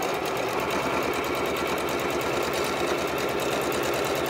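Home sewing machine running at a steady speed, needle stitching rapidly and evenly through two layers of pieced quilt squares to sew a quarter-inch seam.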